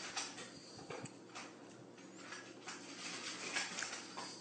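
Faint scattered light clicks and taps of a cat's paws and claws on a stone countertop, over quiet room hiss.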